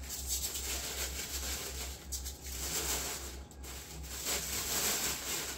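Rustling and scraping of packaging being handled while a collectible is unboxed, an uneven noise that swells and fades, over a steady low hum.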